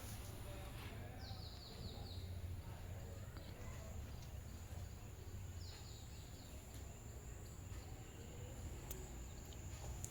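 Quiet room tone with a steady low hum and a faint high whine, broken twice, about four seconds apart, by a short run of quick, high, falling chirps from a bird.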